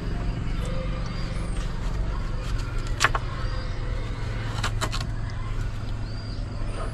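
A knife clicking against a metal plate as watermelon is cut on it: one sharp click about three seconds in and a few more near five seconds. A steady low hum runs underneath.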